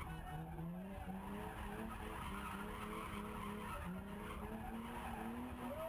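A drift car's engine heard from inside its stripped, roll-caged cabin, revving up and down in repeated surges of about a second each while the tyres skid on the track. Near the end there is a quick rev blip.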